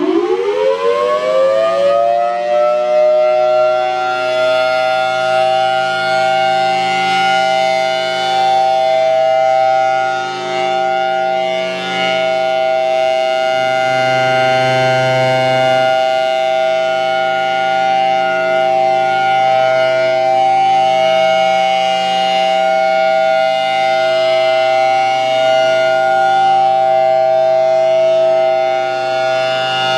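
Outdoor warning siren winding up from a low pitch and, within the first few seconds, settling into a loud, steady two-note tone that it holds: the steady alert signal.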